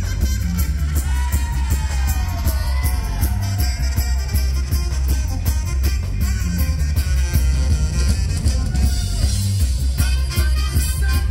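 Live band playing a reggae-rock song: a heavy, loud bass line and drums with electric guitar and singing.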